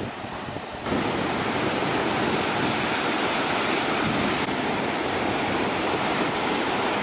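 Steady rushing noise of ocean surf and wind at the beach, jumping up sharply in loudness about a second in.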